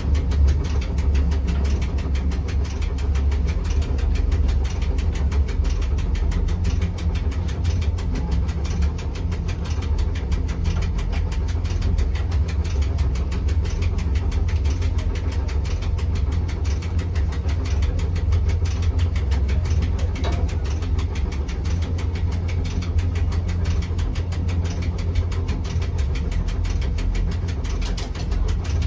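Steady low rumble and hum heard inside a carriage of the electric Rigi rack railway (cog train) from Goldau as it climbs the mountain.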